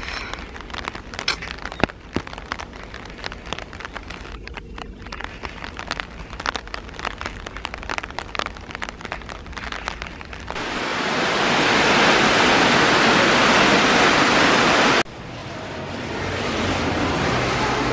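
Rain outdoors: many small scattered ticks and crackles of drops over a low hiss. About ten seconds in a louder, steady hiss builds up and lasts some four seconds, then cuts off sharply. A softer steady hiss follows.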